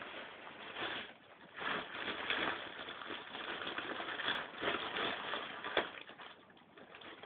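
Rubbish rustling and crinkling in a plastic wastebasket as a kitten moves about among the wrappers and plastic bag, in uneven bursts, with a small sharp knock near the end.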